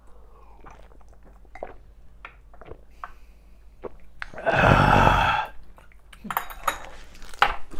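A man drinking from a glass, with a few soft clicks and swallows. About four and a half seconds in comes a loud, rough throaty exhale lasting about a second, right after the gulp.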